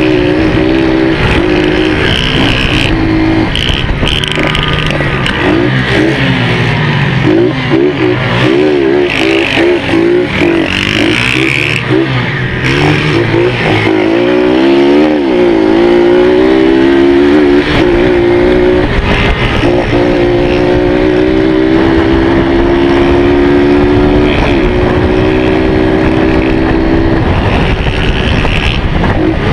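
Small dirt-trail motorcycle engine under way, heard from the rider's seat. Its revs rise and fall with the throttle through the first half, then hold at a steady high pitch for the rest.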